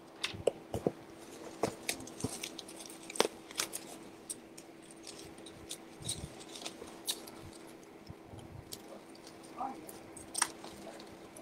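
Scattered light clicks and taps of small plastic action figures and their parts being handled and sorted, over a steady low hum.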